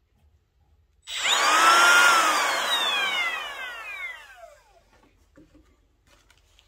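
Makita 18V cordless trim router switched on with no bit load, whining up to speed for about a second, then switched off and winding down slowly, its pitch falling over a few seconds. The long spin-down means it has no electric brake.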